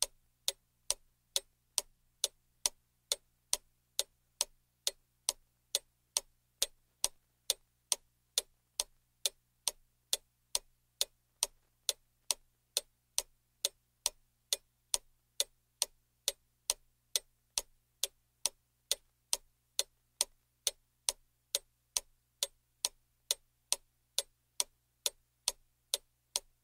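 Clock ticking sound effect, sharp even ticks about two a second, marking the seconds of an on-screen countdown.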